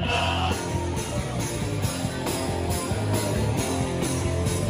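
Hardcore band playing live: electric guitars and drums in a loud, steady passage with a repeated beat.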